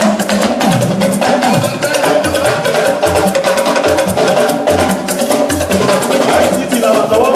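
Church band music driven by fast, busy percussion, with a bass line pulsing underneath and no singing.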